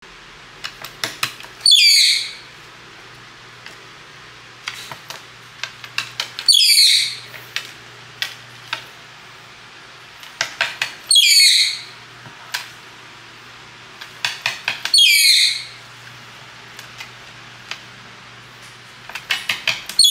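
Red-breasted parakeet giving loud, harsh screeches in excitement, one about every four to five seconds. Each screech is preceded by a quick run of sharp clicks.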